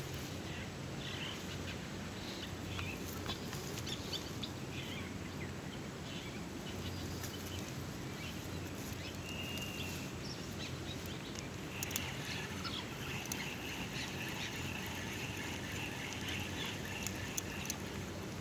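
Birds chirping over a steady background hiss: scattered short calls at first, one brief held note about halfway, then a longer run of calls from about two-thirds of the way in.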